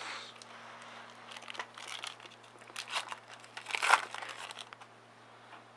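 Foil wrapper of a Topps Chrome baseball card pack crinkling and tearing as the pack is opened and the cards pulled out, in several short bursts, the loudest a little before four seconds in.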